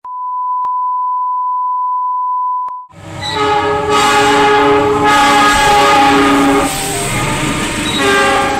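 A steady 1 kHz test tone, broken by two short clicks, for about three seconds. Then a diesel locomotive's multi-note air horn sounds a loud, held chord over the rumble of the passing train. The horn eases about two-thirds of the way through and is blown again near the end.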